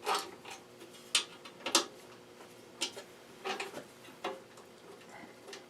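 A series of short, sharp clicks and light knocks, about one a second and irregularly spaced, from hand tools and metal parts being handled during a repair of the compressor's hose fitting.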